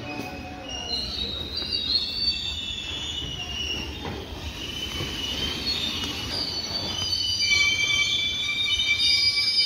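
Train wheels squealing against the rails, several high wavering screeches over a steady low rumble. The squeal grows louder and steadier about seven seconds in.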